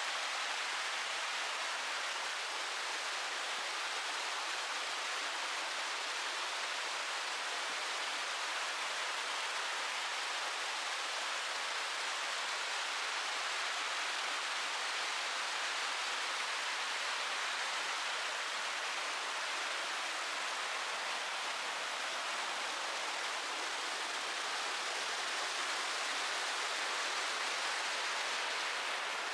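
Rushing water of a mountain stream cascading over rocks and small waterfalls, a steady full rush with no change in level.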